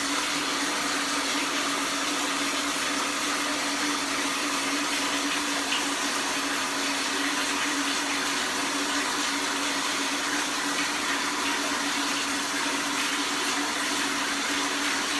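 Water running steadily from a bathroom tap, a constant rush with a low hum under it.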